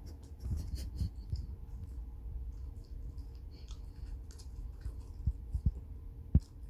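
West Highland White Terrier eating pieces of strawberry from a small bowl: a string of small chewing and mouth clicks, with a few sharper knocks in the last couple of seconds.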